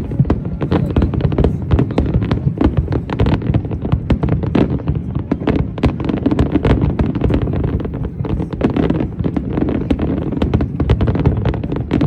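Fireworks going off in a dense, continuous barrage of rapid bangs and crackles over a low rumble.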